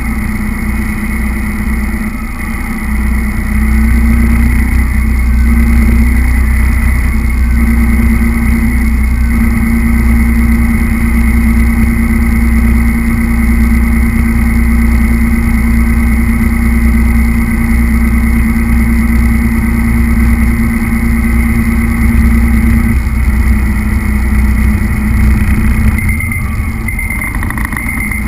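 Remote-control truck driving across a tiled floor, heard from a camera mounted on the truck: its motor and gears whine at a steady pitch over a heavy low rumble. The sound grows louder about four seconds in and eases off near the end.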